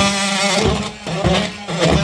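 Makita oscillating multi-tool buzzing as its blade cuts into plaster cornice and cornice cement. The buzz falters and dips several times, with three dull knocks as the blade bites.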